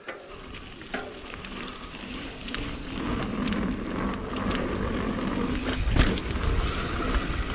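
Mountain bike ridden fast down a dirt trail and off a drop: wind buffeting the action-camera mic, with tyre noise and rattling clicks building up, and a loud thump about six seconds in as the bike lands.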